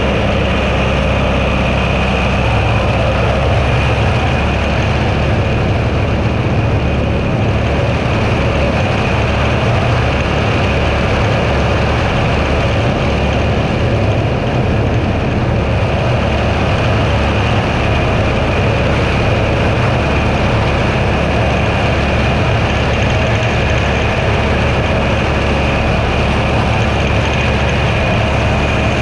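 Tractor engine running steadily under mowing load, a constant low drone with a steady high whine over it.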